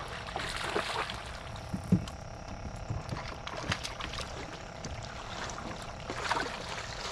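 Water splashing irregularly as a hooked catfish thrashes at the surface while it is reeled in, with one sharp splash about two seconds in and another burst of splashing near the end.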